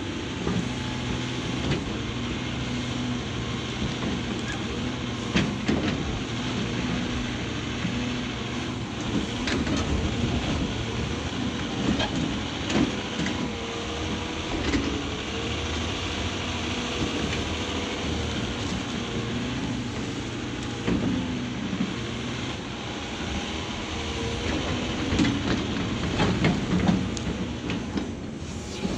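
Caterpillar 349F hydraulic excavator working under load: its diesel engine runs with a steady drone and a wavering whine, with scattered knocks and clunks as the bucket tears out stumps and roots.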